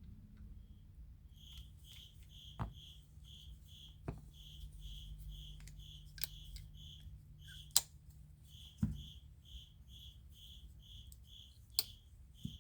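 A cricket chirping steadily, about three short chirps a second, with several sharp metallic clicks at irregular intervals as a flipper pocket knife's blade is flicked open and snapped closed.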